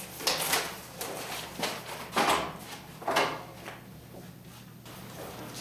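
A person getting up from a table and walking away: a chair moving, with a run of irregular scrapes and shuffling steps that die down near the end.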